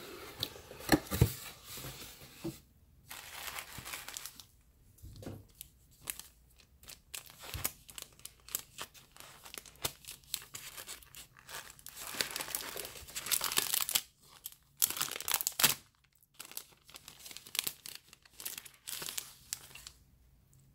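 A cardboard mailer box being opened and unpacked by hand: tearing and crinkling of packing tape, tissue paper and clear plastic sleeves, in uneven bursts with short pauses.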